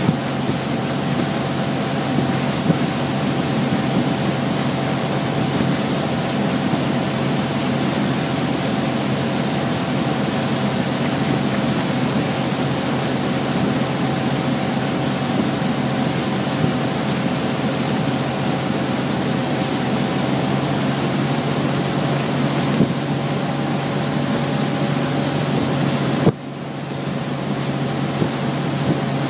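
Towing boat's engine running steadily at speed, mixed with a constant rush of wake and wind noise. About 26 seconds in, a sharp click comes with a brief dip in level before the sound returns.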